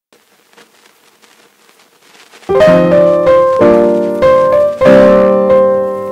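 Piano music: faint at first, then loud piano chords struck one after another from about two and a half seconds in.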